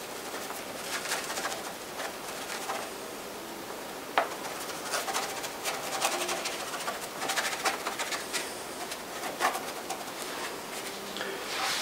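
Stiff paintbrush dabbing and scrubbing thick acrylic paint onto a canvas in short strokes, with a sharp tap about four seconds in. A bird calls faintly in the background.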